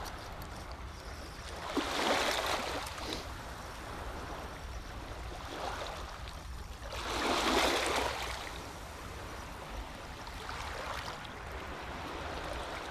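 Small waves washing against the shore twice, about two seconds in and again about seven and a half seconds in, over a steady low rumble.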